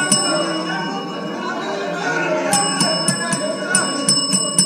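Many members shouting over one another in a legislative chamber. About halfway through, a bell starts ringing steadily over the din, the kind rung to call the House to order.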